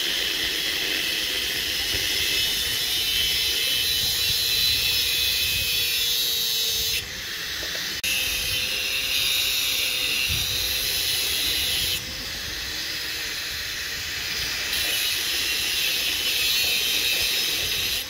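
Handheld angle grinder with its disc cutting into a metal pipe: a loud, steady, high hiss. It eases off briefly about seven seconds in and again around twelve seconds.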